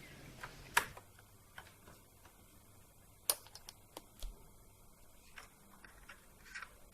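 Faulty 2.5-inch laptop hard disk clicking faintly and irregularly as it powers up: a dozen or so sharp ticks, the loudest about three seconds in. It is the typical click of a mechanical failure in the drive.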